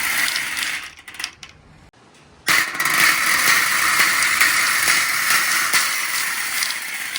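Marbles rolling along a marble run track: a steady rolling rattle with small clicks. It fades out about a second in, then starts up again suddenly about two and a half seconds in.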